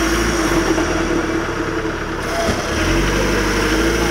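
Off-road 4x4's engine running steadily under load, with a steady electric winch whine over it as the winch hauls the vehicle out of a deep mud hole. The engine note dips briefly a little past halfway.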